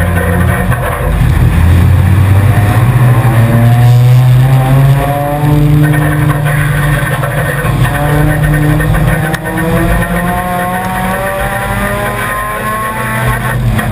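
A four-cylinder enduro race car's engine heard from inside the car, accelerating hard under load. The engine pitch climbs, dips briefly about six seconds in, then climbs steadily again.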